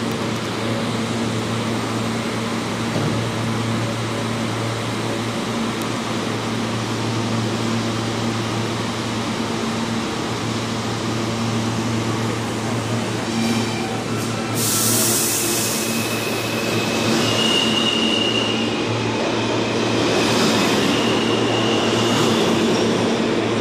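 R160 subway train standing in a station with a steady equipment hum. About two-thirds of the way through there is a short sharp hiss of air, and then the train pulls out, with high steady tones and a louder rumble toward the end.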